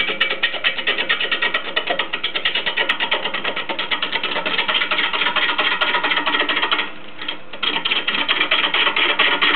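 Lathe gouge cutting a large spinning wooden blank: a rapid, even clatter of the tool edge striking the wood. It drops away for about half a second around seven seconds in, then resumes.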